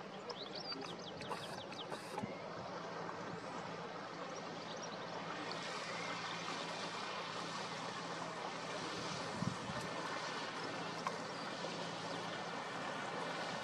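Riverside ambience: a boat's engine running steadily as a low hum over a haze of water and wind noise, the hum fading about nine seconds in.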